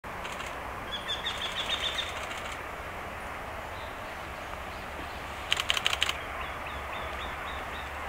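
Eurasian wrynecks singing: runs of quickly repeated notes, one about a second in and a louder, harsher one at about five and a half seconds, with fainter answering notes after it.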